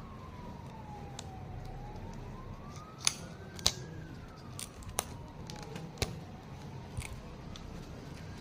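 A distant siren wailing slowly up and down, with a scatter of sharp clicks and taps over it, the two loudest about three seconds in.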